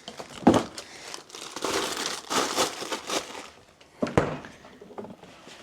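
Food packaging crinkling as it is handled, in several bursts, with a sharp knock about half a second in and another about four seconds in.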